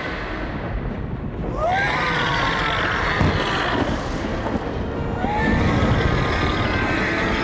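Giant serpent monster's roar in a film, heard twice, about a second and a half in and again about five seconds in. Each call opens with a rising cry and sounds over a steady low rumble.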